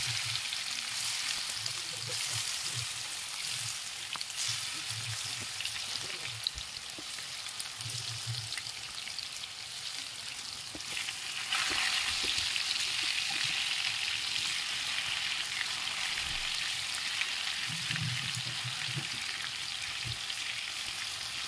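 Spice-marinated fish pieces shallow-frying in hot oil in a pan: a steady sizzle with fine spattering crackles, which grows louder about halfway through.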